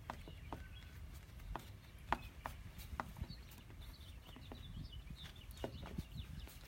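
Irregular light clicks and taps of hand work on the doorbell's small parts and screws, over a low steady background hum.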